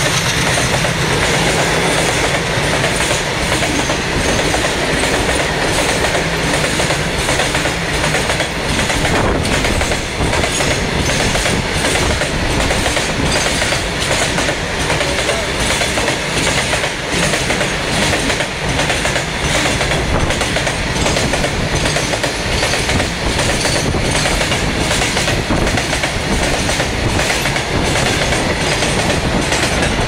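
Long freight train of open-top wagons rolling past close by, its wheels clattering over the rail joints in a steady run of beats.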